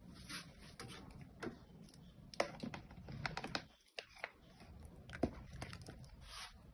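Irregular light clicks and taps of kitchen tongs, plastic tub and salmon steaks against a Philips air fryer's basket as the fish is laid in it, with a couple of sharper clicks about two and a half and five seconds in.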